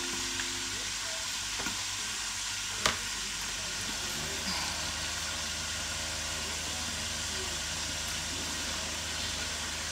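Green bell peppers frying in a covered pan, a steady sizzle, with one sharp click about three seconds in.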